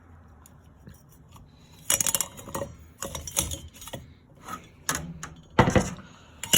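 Metal parts of a Hampton Bay industrial ceiling fan knocking and rattling as it is handled and turned over. A series of irregular clanks and jingles starts about two seconds in, with the loudest knock near the end.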